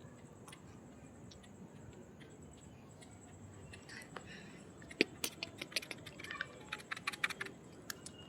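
Quiet hiss, then from about halfway through a quick irregular run of light clicks and taps.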